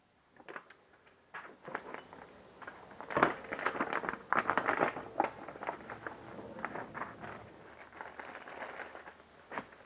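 Plastic parts bag crinkling and rustling in the hands, with many small irregular clicks, as the bag of new hydraulic seals is handled.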